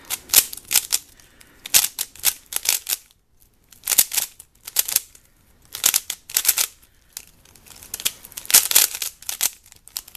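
MoYu Weilong V2 3x3 speedcube being turned fast by hand: rapid clicking of the plastic layers in quick clusters of turns, with brief pauses between them.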